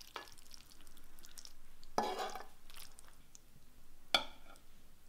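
Saucy jjapaguri noodles and beef cubes being lifted and stirred with a utensil: a few short rustling bursts, the longest about two seconds in, and a sharp clink of the utensil near the end.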